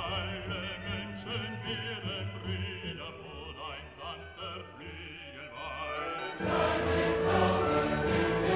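Classical vocal music: operatic singing with a wide vibrato, then about six seconds in the music swells suddenly louder as a full choir and orchestra come in.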